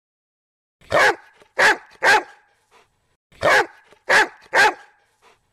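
Dog barking: two bursts of three barks each, the second burst starting about a second after the first ends.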